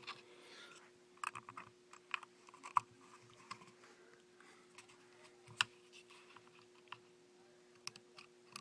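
Irregular hard plastic clicks and taps from handling a Kydex sheath and its spring-loaded MOLLE-Lok clip, a few sharper than the rest, over a faint steady hum.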